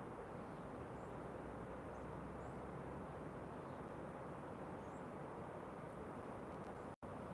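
Steady low rushing outdoor ambience of a storm coming on, with faint, short, high bird chirps every second or two. The sound drops out for an instant near the end.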